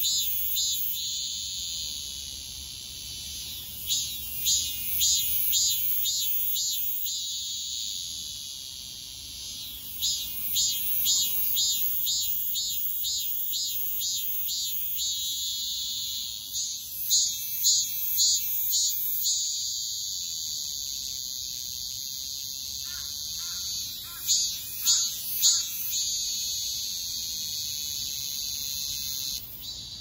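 Cicada singing: a loud, high, continuous buzz broken every few seconds by runs of rapid pulsed phrases, about two pulses a second.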